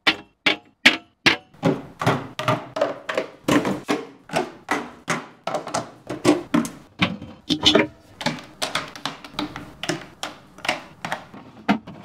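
A quick run of thunks and taps, about two or three a second, some with a short ringing note: items being handled and set down.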